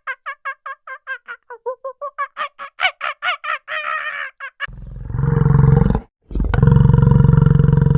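An animal calling: a rapid series of short pitched calls, about six a second, then two long, loud, low roaring calls from about five seconds in, with a brief break between them.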